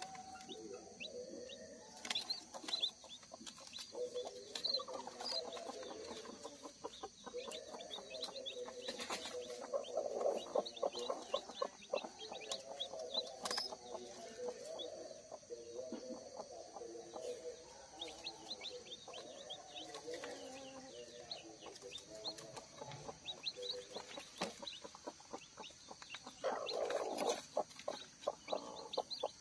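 Broody village hen clucking softly and almost continuously to her newly hatched chicks. The chicks' short high peeps are scattered throughout, and the hen's clucking gets louder for a moment near the end.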